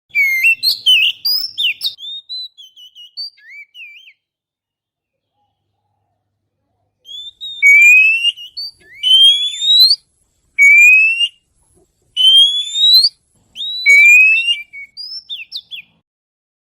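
Oriental magpie-robin (kacer) song played as a lure call. A burst of quick varied chirps and twitters is followed by a pause, then five loud rising whistles of about a second each, with short chirps between them.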